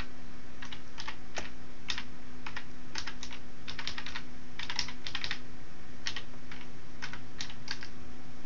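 Typing on a computer keyboard: irregular keystrokes, some single and some in quick runs of three or four, over a faint steady low hum.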